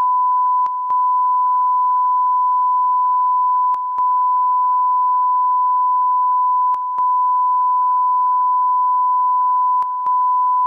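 Steady single-pitch test tone broadcast with the 2rn test card, a loud continuous beep. About every three seconds it dips briefly, with a pair of faint clicks.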